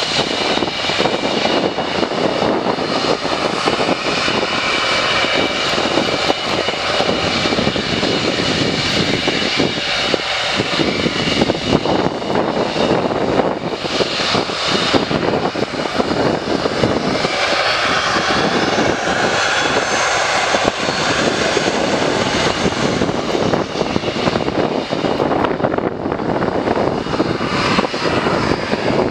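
Two Panavia Tornado jets taxiing, their RB199 turbofan engines running at low power: a steady jet rumble with a high whine.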